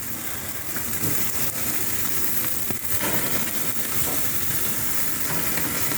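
Jerk chicken sizzling and crackling steadily on the grate of a hot oil-drum jerk pan grill.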